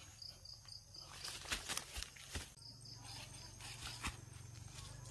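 Insects chirping in short runs of quick, evenly spaced high pulses, about five a second. A few sharp clicks and rustles cut in about midway, the loudest sounds here.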